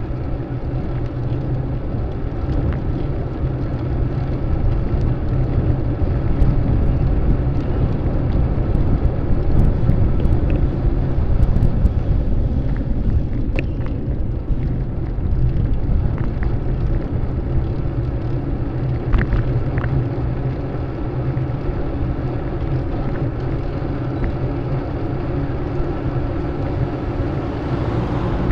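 Steady low rumble of wind and road noise from riding a bicycle, with a few light ticks around the middle.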